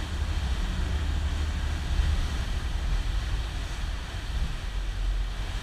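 Boat under way: a steady low rumble of engine and hull noise mixed with rushing wind buffeting the microphone.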